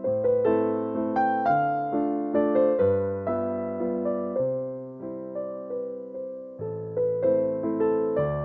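Background music: a gentle piano melody of struck notes that ring and fade, with a bass line underneath.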